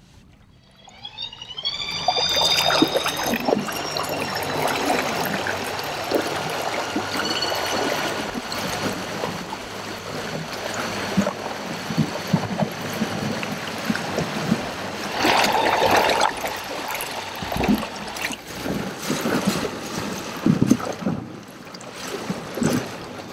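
Torqeedo electric outboard on a jon boat spinning up with a rising whine, then water rushing and splashing along the hull as the boat runs.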